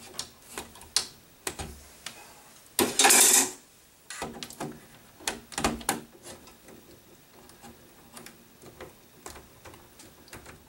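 Insulated electrical wires being handled and fed into a metal breaker panel: scattered light clicks, taps and rustles, with one louder scrape of just under a second about three seconds in.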